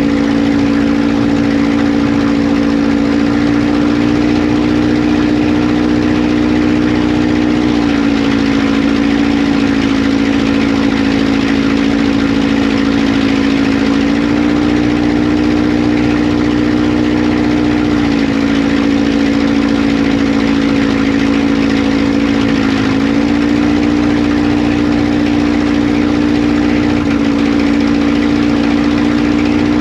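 Avid Flyer light aircraft's engine and propeller running steadily, the note stepping slightly up or down a few times.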